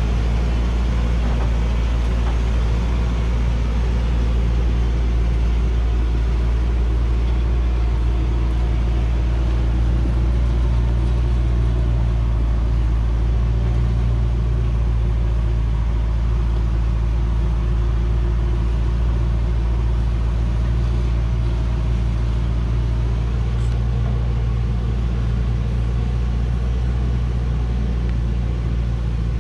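Heavily loaded log truck's engine running steadily under load on a climb, a low, even drone that holds the same pitch and level throughout.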